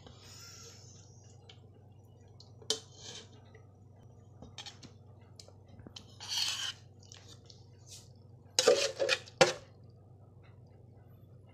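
Metal utensil clinking and scraping against an aluminium pot and a metal serving dish while a whole cooked chicken is lifted out and set down, with a cluster of louder clanks near the end. A faint low hum runs underneath.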